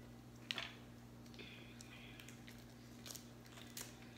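Faint, scattered clicks and crackles of cooked shellfish shell and meat being pulled apart by hand, the sharpest about half a second in, over a low steady hum.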